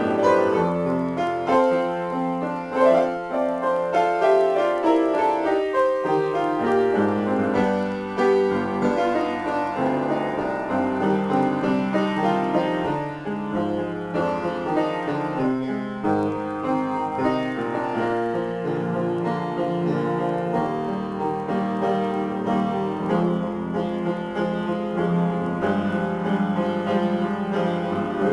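Solo upright piano being played in a free improvisation, a steady stream of notes and chords in low and middle registers.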